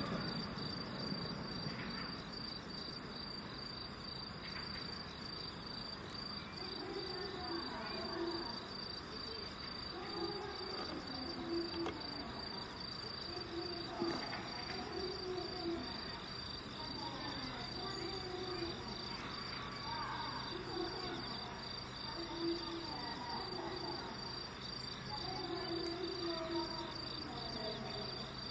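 Night insects chirping in a steady, evenly pulsing high trill during a lull in a fireworks show, with faint distant voices. The tail of a firework burst fades out at the very start.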